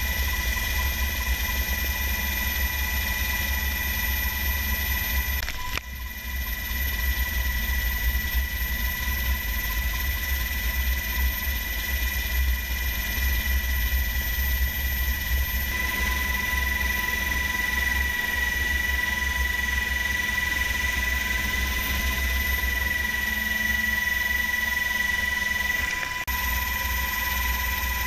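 Helicopter heard from inside the cabin in flight: a heavy, steady rotor and turbine drone with a steady high whine. The sound dips briefly about six seconds in and again near the end.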